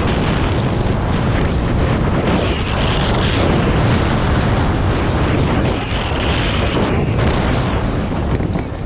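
Loud, steady wind rushing over an action camera's microphone during a downhill ski run, with skis scraping and hissing over packed snow.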